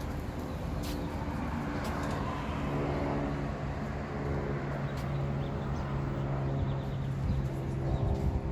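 Outdoor ambience with a steady low motor hum, like a vehicle engine running close by, that grows stronger a couple of seconds in, over a background of traffic noise and a few faint clicks.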